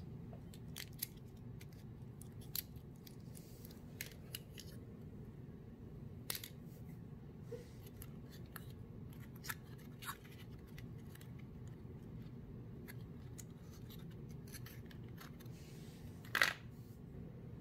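Small clicks and light rustles of cardboard 3D puzzle models being handled in the fingers, over a low steady room hum. About sixteen seconds in there is one louder short scrape as the model car is set down.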